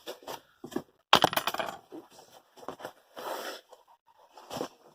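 Cardboard shipping box being opened and handled: irregular scrapes and rustles, loudest about a second in.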